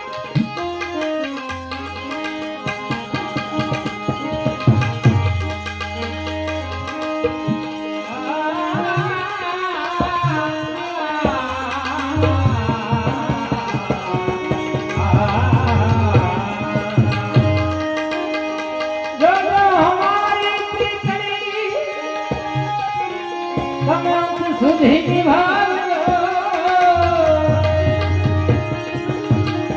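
Devotional santvani bhajan music: tabla playing a steady rhythm under held drone notes, with a gliding melody coming in about eight seconds in.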